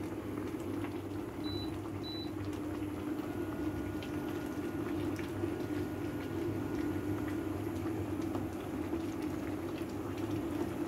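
Chicken broth boiling hard in a pot on the stove: a steady bubbling with scattered small pops.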